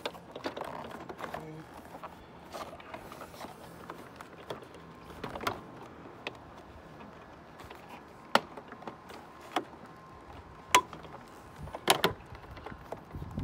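Scattered sharp clicks and knocks of plastic door-trim parts and connectors being handled and fitted, the loudest about eight, eleven and twelve seconds in.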